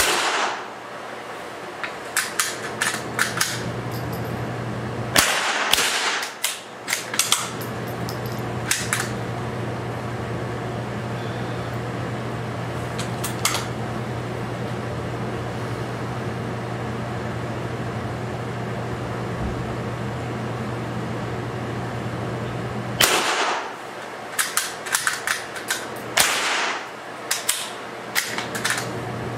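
Four rifle shots in a small indoor range, one at the start, one about five seconds in and two near the end, each ringing briefly off the walls. Runs of light metallic clicks follow the shots as bolts are worked. A steady low hum lies underneath.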